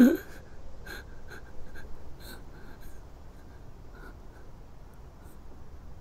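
A man's sharp, choked sob right at the start, then quiet, uneven crying breaths and small sniffles.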